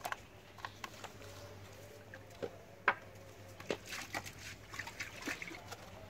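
Irregular light clicks and taps from hands handling a plastic spice jar and seasoning raw fish pieces in an iron pan, with the sharpest knock about three seconds in.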